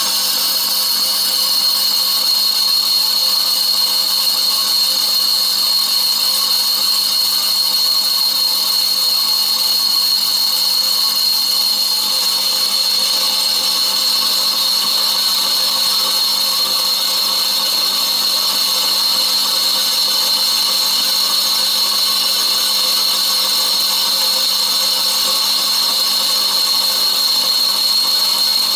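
Metal lathe turning the rim of a large flywheel, the tool taking a light 0.025-inch cut. The machine runs steadily with a constant high whine over the cutting noise.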